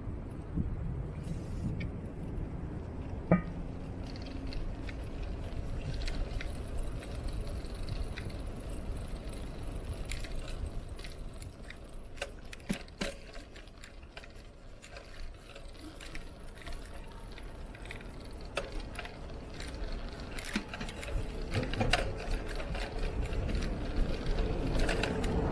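Wind rumbling on the microphone with light rattles and clicks from a Trek cross bike being ridden. There is a sharp click about three seconds in, and the rumble grows louder near the end.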